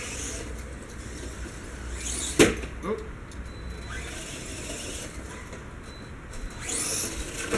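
Electric RC truck driving across the yard, its motor whine rising near the end, with a sharp click about two and a half seconds in over a low outdoor rumble.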